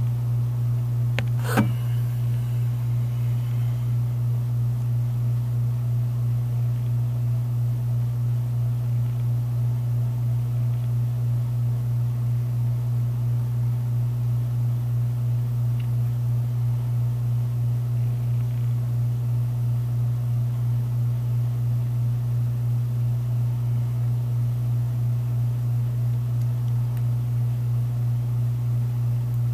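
A steady low hum, with one sharp click about a second and a half in.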